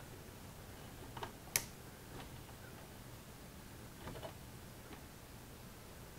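Plastic LEGO-style building bricks handled and snapped together: a few sparse, sharp plastic clicks, the sharpest about a second and a half in and a small cluster about four seconds in, over a faint steady room hum.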